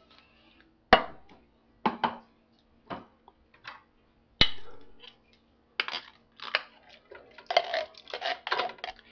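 Metal clinks and knocks as canned diced tomatoes are tapped and scraped out of the can into a cooking pot. The sharp taps are spaced out at first and come thicker and faster near the end.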